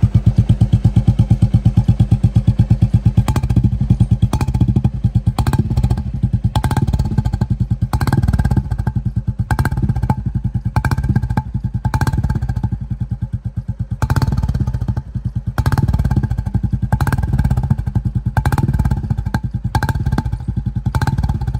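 Royal Enfield Bullet 350's single-cylinder engine idling through an aftermarket Foldez Indori silencer, with an even, deep 'dug dug' exhaust beat. A few sharper, louder beats stand out here and there.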